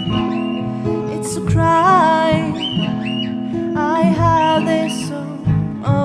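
Music: an acoustic guitar playing held, ringing notes under a wavering singing voice.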